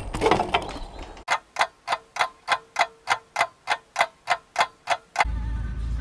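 Clean, evenly spaced ticking, about three and a half ticks a second for roughly four seconds, with no background between the ticks: an edited-in ticking sound effect. It is preceded briefly by bike wheels rolling on concrete and followed by the low rumble of a car's cabin.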